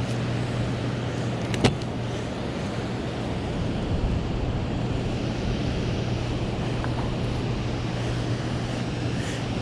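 Steady rushing noise of wind buffeting the microphone over moving water, with a low steady hum underneath. A single sharp click about a second and a half in.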